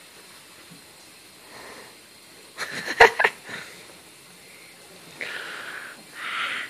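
French bulldog's raspy, snuffling breath noises as it wrestles on its back with a hand: a quick run of loud sputters with a sharp thump about three seconds in, then two hissing breaths near the end.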